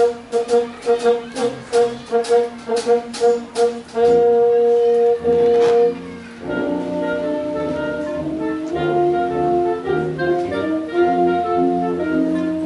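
Concert wind band of brass, saxophones and clarinets playing. Short detached notes with percussion hits for about four seconds, then two long held notes, then a softer, smooth passage of sustained chords from about six and a half seconds in.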